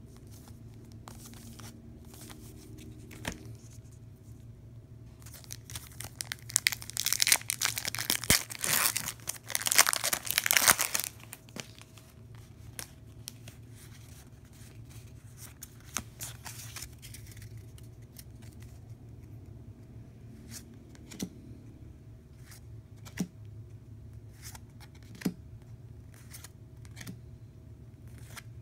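Shiny plastic Pokémon TCG booster pack crinkling and tearing open, loudly for about five seconds from roughly five seconds in. After that come scattered light clicks and snaps as the cards are handled and flipped, over a low steady hum.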